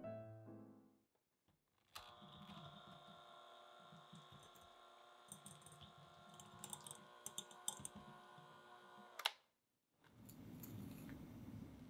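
Faint steady hum with scattered light clicks and taps. A sharp click comes about nine seconds in, then a brief silence before the hum returns.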